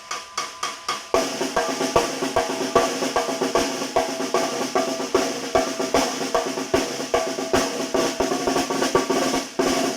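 Tarola (Mexican band snare drum) played solo in a son rhythm: a few single strokes, then from about a second in a continuous fast pattern of rolls with regular accented hits.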